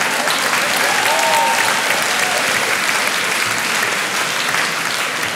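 Audience applauding steadily in a large hall.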